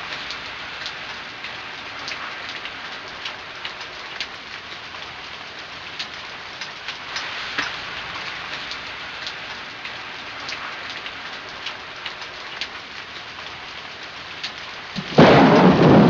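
Steady rain falling, with many small raindrop ticks. About fifteen seconds in, a sudden loud crack of thunder rumbles over it.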